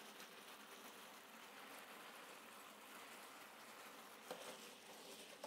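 Faint, steady bubbling of tomato sauce simmering in a frying pan around ravioli, with one light knock about four seconds in.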